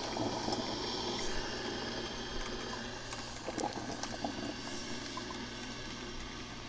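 Black & Decker drip coffee maker hissing steadily with faint gurgles and a few small clicks as its heater works through the water.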